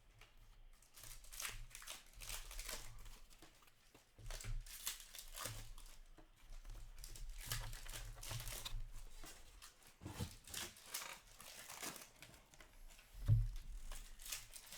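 Trading card pack wrappers crinkling and tearing as card packs are opened and the cards handled, in a string of irregular short rustles.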